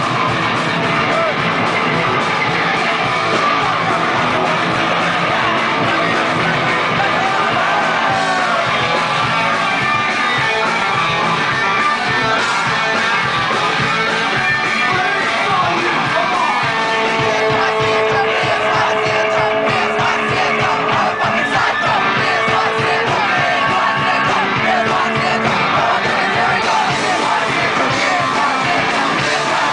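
Live punk rock band playing loud: electric guitars, bass and drums, with a singer shouting into the microphone.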